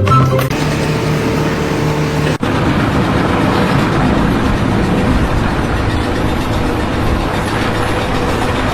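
Intro music ending, then, after an abrupt cut about two and a half seconds in, the steady running noise of a heavy machine engine at a construction site.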